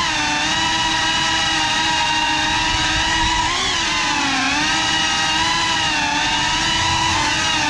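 FPV drone motors and propellers whining steadily, heard from the drone's own onboard camera; the pitch dips and climbs back a little past the middle as the throttle changes.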